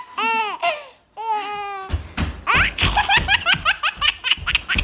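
Baby laughing hysterically: high, squealing laughs in the first two seconds, then a quick run of short laughs, several a second.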